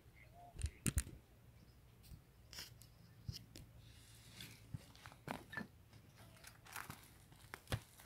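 Faint, sparse crackling and rustling of dry leaves and twigs, with a few sharper snaps about a second in and again in the second half.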